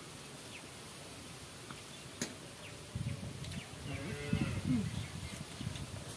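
A cow mooing once, a long call that starts about three seconds in and rises and falls in pitch over about two and a half seconds. A single sharp click comes a little before it.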